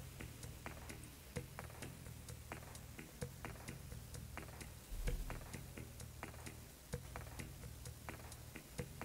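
Faint, quick tapping clicks, a few a second and slightly uneven, as a large makeup brush packs loose white powder under the eyes, over a steady low hum. A soft low thump comes about five seconds in.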